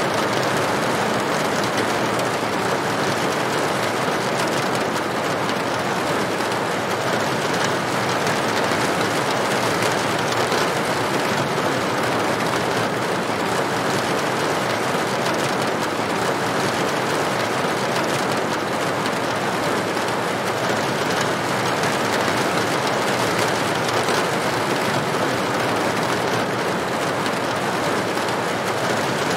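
Steady rain falling on a corrugated tin roof: a dense, even patter with no letup.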